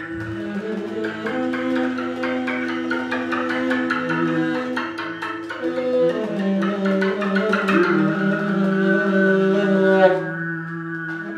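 Free-improvised music: saxophone held notes over several sustained drone tones, with a scatter of quick clicks and taps on top. About ten seconds in, the clicking, brighter layer cuts off and only the held tones remain.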